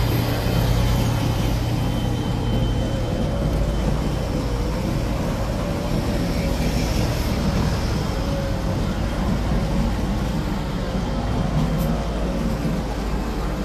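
Steady engine rumble with a faint wavering hum.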